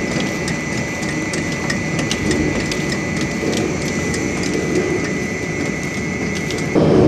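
Wagner 70 kW municipal-waste processing machine running, with a steady mechanical rumble, a constant high whine and a dense clatter of small knocks and clacks from the material being worked. Near the end the whine stops and the noise turns louder and deeper.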